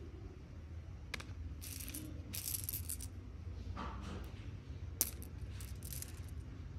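Faceted amethyst gemstones clicking and clinking against one another as they are handled, with a sharp click about a second in and another about five seconds in.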